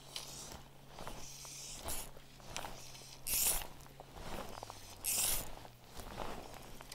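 Fly line being stripped in by hand through the rod guides: a series of short zipping pulls, one every second or two, over a faint steady low hum.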